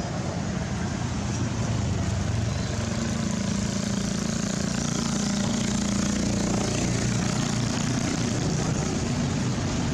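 Steady low engine hum of a motor vehicle running nearby, a little louder from about a second and a half in.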